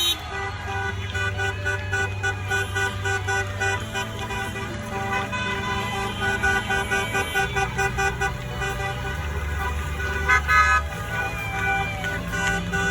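Car horns honking over music with a steady beat, with a louder honk about ten seconds in.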